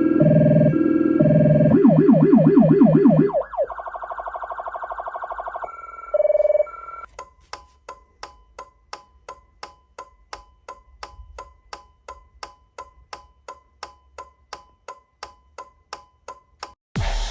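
Low-frequency rumbler-type siren played through a woofer, switching through its tones: a low alternating two-tone, then a fast yelp about two seconds in, cut off at about three and a half seconds. Quieter, higher siren tones follow, then a long run of faint, even clicks, about two and a half a second.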